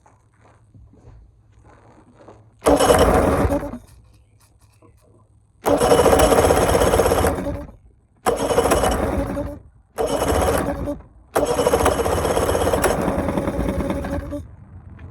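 Bass boat outboard motor being started over and over: five bursts of engine noise, each cutting off after one to two seconds, the last lasting about three and a half seconds.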